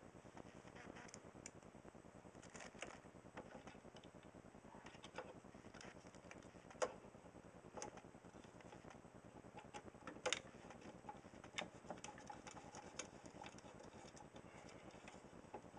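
Faint, scattered clicks and taps of hands fitting a plastic case fan against a radiator inside a computer case, over a low steady hiss. The loudest clicks come about seven and ten seconds in.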